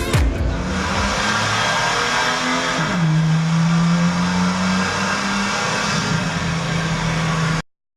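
Porsche car engine running, its pitch dropping about three seconds in and then holding steady, before cutting off suddenly near the end.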